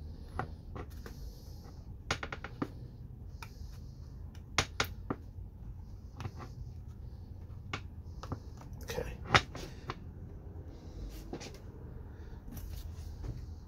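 Scattered clicks and knocks of a Lexan window pane and its metal frame being handled and pushed into place, the sharpest knock about nine seconds in, with short bursts of hiss between them over a steady low hum.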